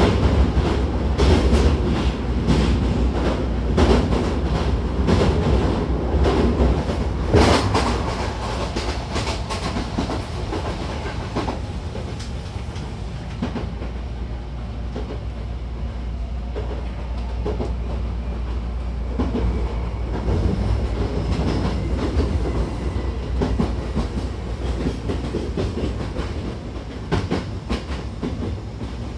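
Hankyu 1000-series electric train heard from inside the car, running with a steady low rumble. For the first dozen seconds the wheels clatter rapidly over rail joints, then the ride goes smoother and a little quieter, with a few scattered clicks near the end.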